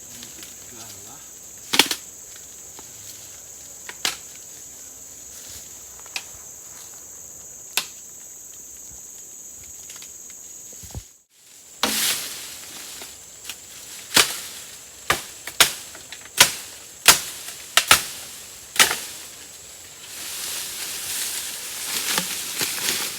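Bamboo being chopped: a few sharp, widely spaced blows, then a quick run of about ten blows close together, followed by a noisy hiss near the end. A steady high insect drone runs under the first half.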